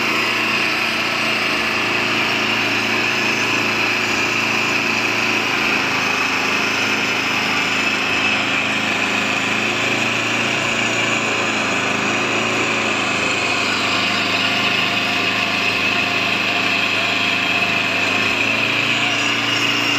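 Blaw-Knox asphalt paver's engine running steadily at close range as it lays asphalt, with the tipper truck feeding its hopper.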